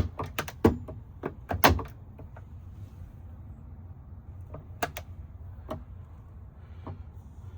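Lever-operated turret of a Schaublin 70 lathe being worked by hand: a quick run of clicks and knocks through the first two seconds, then a few single clicks.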